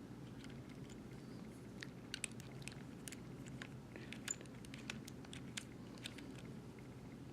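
Faint, irregular small clicks and ticks of a 5/32 Allen wrench turning machine screws out of a knife sharpener's cam housing plate by hand, over a steady low hum.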